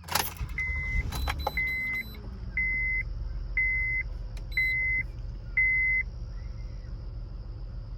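A 2009 Honda Odyssey's 3.5-litre V6 starts with a quick crank at the very start and settles into a steady idle. It is running with its cylinder 3 and 4 spark plugs swapped, to test whether the misfire follows the plug. Over the idle the van's warning chime beeps six times, about once a second.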